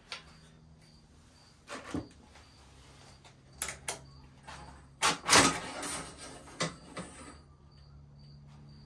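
Metal clicks, knocks and clatter of a sawmill bandsaw blade being handled and lifted off a tooth setter, with the loudest clatter about five seconds in, over a faint steady hum.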